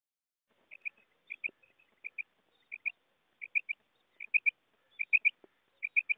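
Female common quail calling: short, high notes in quick pairs and then threes, repeated at an even pace of about one group every 0.7 seconds, starting under a second in.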